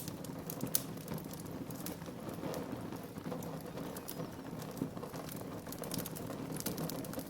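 Wood fire burning in a fireplace: a steady low rush of flames with irregular sharp crackles and pops, a few each second.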